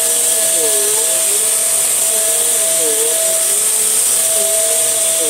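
Tesco Eco Pet (model V.CU12P) vacuum cleaner running steadily: a loud, continuous rush of air with a high whine over a steady hum. A lower tone in the motor sound dips and recovers about once a second.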